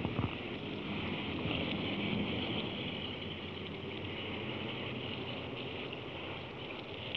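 Steady rush of water flowing through a concrete stormwater drain, heard while walking along it, with a couple of sharp knocks in the first moment.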